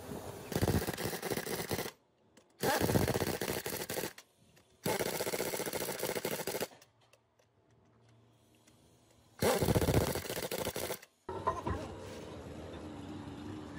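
Air-hose-fed pneumatic impact wrench hammering on the truck's wheel nuts in four bursts of about one and a half to two seconds each, with short pauses between them.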